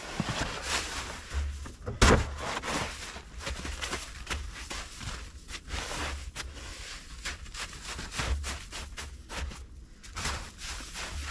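Boots crunching and stamping in packed snow in an irregular run of short strokes, with one loud thump about two seconds in.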